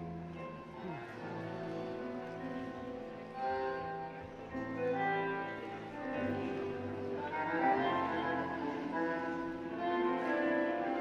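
Recorded tango music played over loudspeakers for the dancers, with bowed strings on long held notes and some piano.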